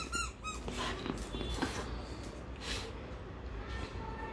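Small dog tugging at a toy held in a hand, growling faintly, with soft scuffs and scrapes from the tug.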